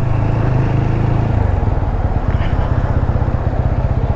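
TVS Apache RTR 200's single-cylinder engine running at low speed, settling into an even idle pulse about a second in.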